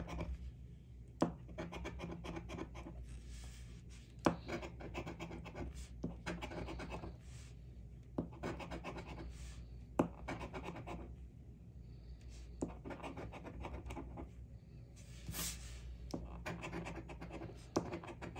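Coin scratching the coating off a scratch-off lottery ticket: repeated short rasping strokes, broken by a few sharp clicks.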